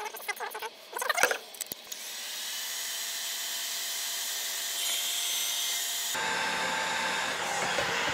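Bosch hot-air heat gun blowing, a steady fan-and-air rush with a faint whine, shrinking heat-shrink tubing over soldered wire splices; it starts about two seconds in, its sound shifts partway through, and it cuts off at the end. Before it come a few small clicks and rustles of wires being handled.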